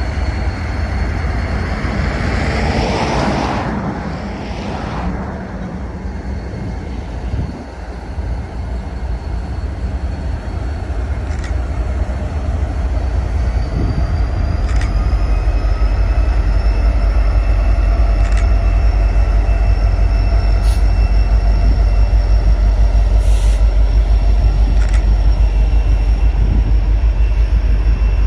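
Freight train's diesel locomotives pulling away from a standstill with a deep engine rumble that builds, then covered hopper cars rolling past at low speed. There is a brief rush of noise a few seconds in, thin steady wheel squeal through the second half, and occasional sharp clicks of wheels over the rail joints.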